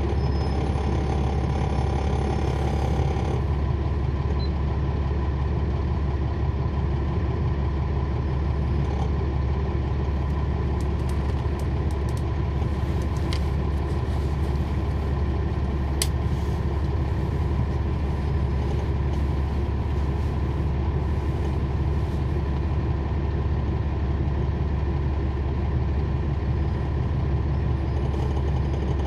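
Cummins ISL9 diesel engine of a NABI 40-foot transit bus running steadily, heard from inside the bus as a constant low rumble. A higher steady tone stops about three seconds in.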